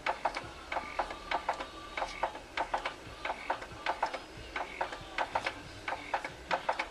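Baby swing's mechanism clicking rhythmically, about three or four ticks a second, each with a short ringing tone.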